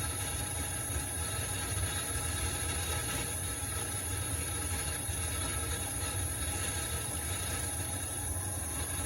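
Dishwasher running: a steady low motor hum with a faint hiss over it, holding even throughout.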